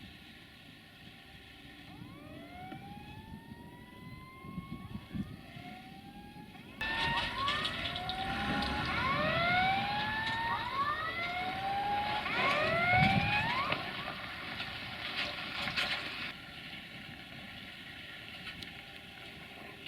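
A train passing through the station, its rumble rising sharply about seven seconds in and easing off near sixteen seconds. Over it come many overlapping high-pitched rising squeals, each about a second long.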